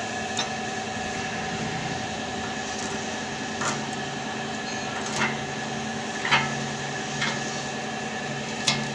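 Stick (arc) welding: a steady hiss and hum from the arc, broken about five times by sharp crackling pops.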